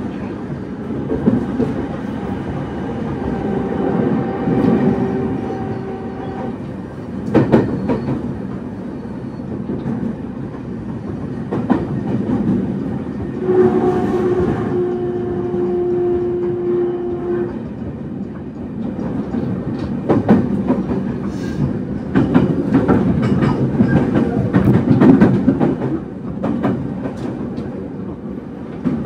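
209 series electric train running, heard on board: a steady rumble from the wheels and running gear, with sharp clacks as the wheels cross rail joints. Twice, for a few seconds each, a steady motor tone holds on top of it.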